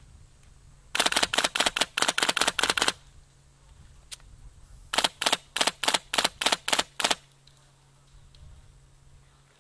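Airsoft rifle firing two strings of rapid shots, the first lasting about two seconds, the second evenly spaced at about four shots a second.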